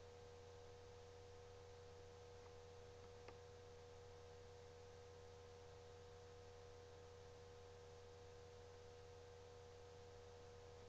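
Near silence: a faint steady electrical hum with a thin whine over it, and one faint click about three seconds in.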